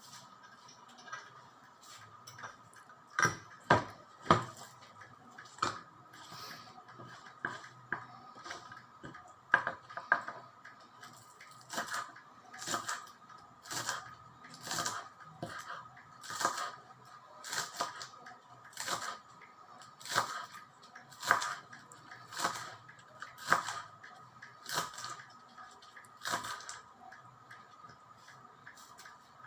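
Knife strokes on a cutting board during food preparation: a few loud irregular chops early on, then steady cuts about one a second.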